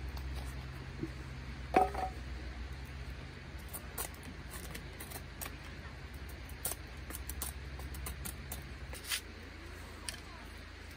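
A knife carving a small wooden stick, with short scraping and shaving strokes at irregular intervals and a sharper knock about two seconds in. A low steady hum runs underneath and fades out near the end.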